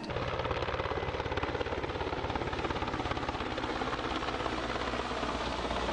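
Helicopter in flight: a fast, even chop from the rotor blades over a steady rushing engine noise.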